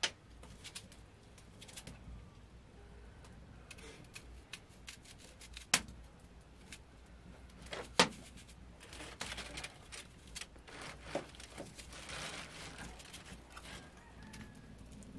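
Scattered small clicks and knocks of objects being handled, with two sharp knocks about six and eight seconds in.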